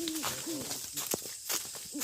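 Owl hooting: two short hoots early on, then a gap, with crackling clicks throughout and one sharp click about a second in.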